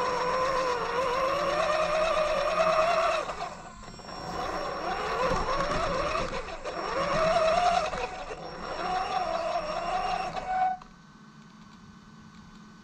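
Axial Yeti XL RC truck's electric motor and drivetrain whining, the pitch rising and falling with the throttle as it drives. The whine cuts off suddenly near the end as the truck stops.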